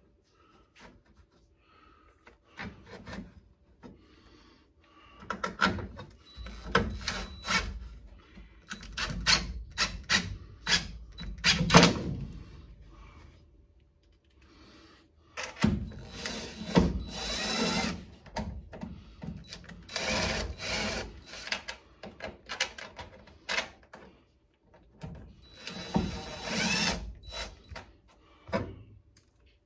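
Power drill driving screws in several runs of a few seconds each, with knocks and clatter of parts being handled between them: the door sill plate being screwed down.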